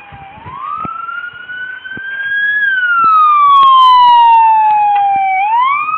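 Police car siren on a slow wail: the pitch rises for about two seconds, falls for about three, then starts rising again, growing louder partway through.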